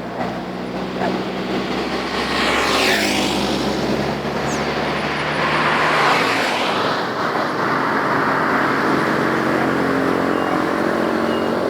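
Road traffic: motor vehicles driving past on a road over a steady engine hum. One passes about three seconds in with a falling whoosh, and another swells past about six seconds in.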